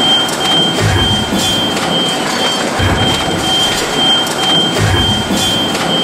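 Loud, continuous industrial machine noise with a deep thud about every two seconds.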